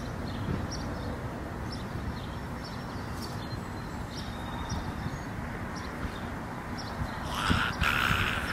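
Outdoor ambience with a steady wind noise on the microphone and faint short high chirps every second or so. About seven seconds in, a louder rustling hiss comes in.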